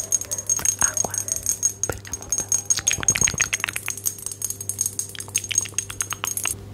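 Rapid light tapping close to the microphone as an ASMR trigger: a quick run of clicks, several a second, stopping shortly before the end.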